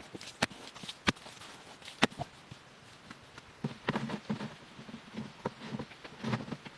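Sharp knocks and taps of wood being handled or struck, three spaced apart early, then a busier run of duller thuds and clatter over the second half.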